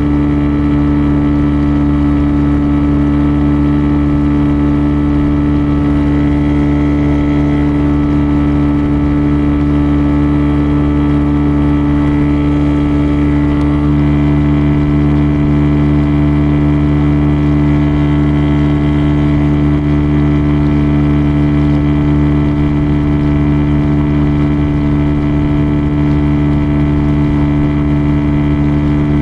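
Motor engine running at a steady speed with an even drone, shifting slightly in pitch about halfway through.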